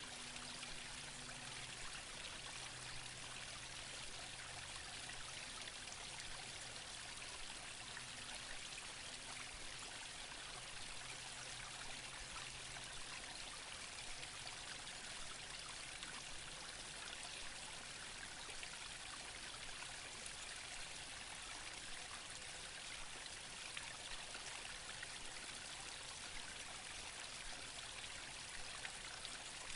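Small brook babbling, a steady even rush of water with trickling over it.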